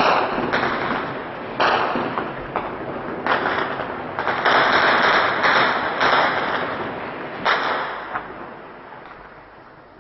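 Gunfire: a string of about nine sharp shots and short bursts, each trailing a long echo, fading away over the last couple of seconds.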